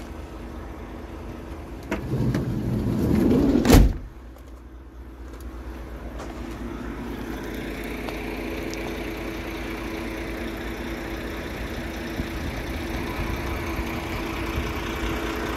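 Van's sliding side door rolled along its track and slammed shut with a loud bang about four seconds in, over the steady hum of the van's engine idling.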